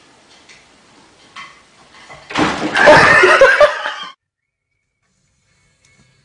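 A sudden crash followed by people bursting into loud laughter for about two seconds, cut off abruptly.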